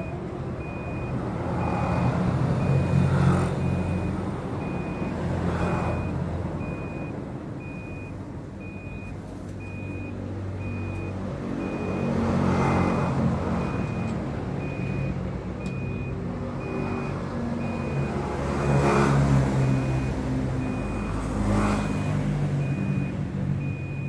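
A vehicle engine running low and uneven, swelling louder several times, with a reversing alarm beeping steadily at an even pace throughout.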